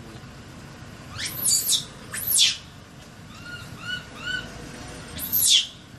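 Baby macaque screaming in distress: high, shrill squeals that sweep up and fall away, loudest about a second, two seconds and five seconds in, with softer short chirps in between.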